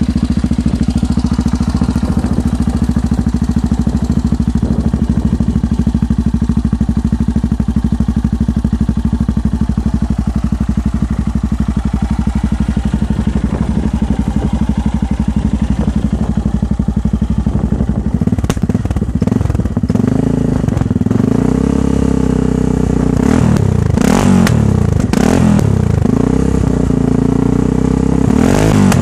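Yamaha XT660X's single-cylinder four-stroke engine idling steadily through its twin under-seat exhausts, freshly started. From about 18 seconds in the throttle is blipped again and again, the revs rising and falling each time.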